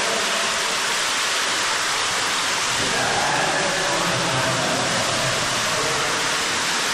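Steady rush of falling water inside a waterfall cave.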